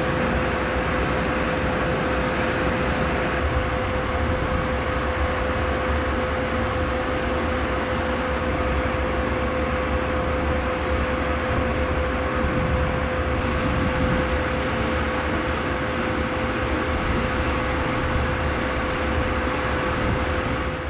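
EH500 electric freight locomotive standing with its cooling blowers running: a steady, loud whirring with one constant whining note.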